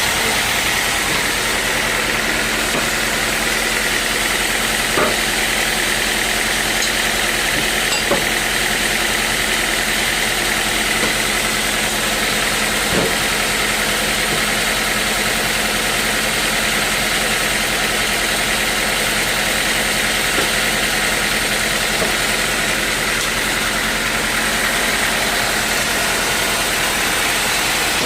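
Engine-driven sawmill machinery running steadily, with a constant high whine and a few light knocks.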